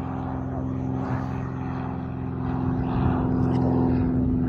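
Propeller aircraft engine running at a steady pitch, with a rougher low rumble growing louder about halfway through.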